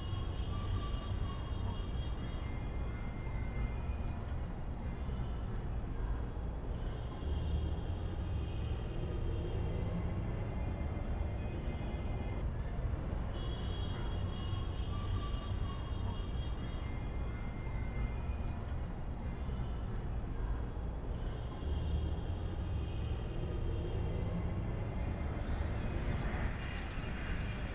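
Outdoor ambience: a steady low rumble with frequent short, high chirps over it.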